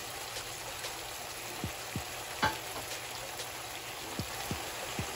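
Sliced carrots, bell peppers and onion rings sizzling steadily in hot oil and vinegar in a skillet, being stirred with a silicone spatula at first, with a few scattered soft taps and pops.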